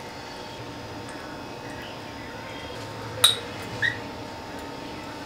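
A single sharp clink against the glass mixing bowl about three seconds in, with a brief ringing, followed by a fainter clink. Beneath it is a low steady background hum.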